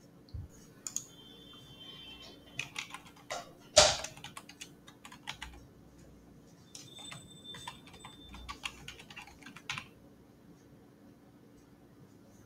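Computer keyboard typing: irregular runs of key clicks as an email address is typed, with one louder click about four seconds in. The typing stops about ten seconds in.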